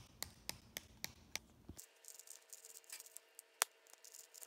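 Faint clicks and taps, about four a second for the first couple of seconds. Then it is near quiet with a faint steady hum and one sharper click later on.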